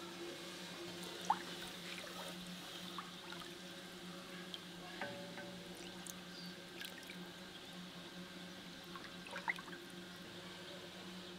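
Liquid cheese starter poured in a thin stream from a small bowl into a large aluminium pot of milk, then the milk stirred with a wooden spoon, with faint trickling and splashing. A couple of light knocks, about a second in and near the end, sit over a faint steady hum.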